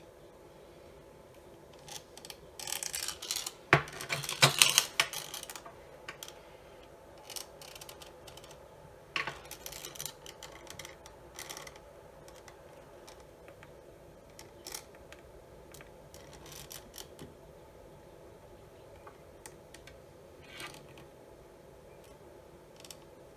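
Hands working on a plastic tool housing: a burst of rustling and clattering about two to six seconds in, then scattered light clicks and taps.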